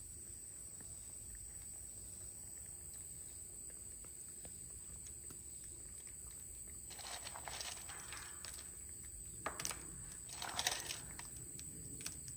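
Quiet outdoor background with a steady faint high tone. From about seven seconds in come a few short bouts of rustling and crunching as a rhesus macaque picks through food beside a metal bucket and eats it.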